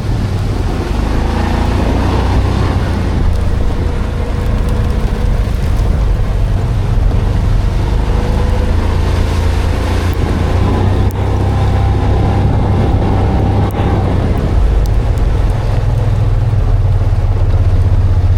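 Vehicle running steadily under way, a low engine and road rumble with a faint whine that wavers in pitch, and some wind noise.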